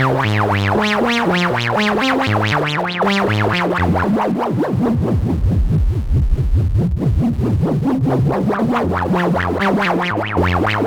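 Analogue synth note sequence played through a Djupviks Mörser stereo Wasp-style filter with its resonance high. An LFO sweeps the cutoff rapidly up and down, giving a fast repeating wah over the stepping notes, and the sound turns grittier and rougher for a few seconds in the middle.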